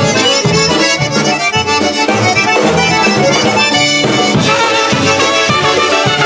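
Polka band playing live: a piano accordion and a concertina carry the tune over a steady, regular bass beat.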